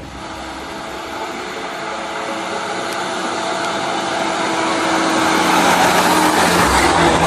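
Truck engine and exhaust approaching, growing steadily louder, with a steady engine drone throughout.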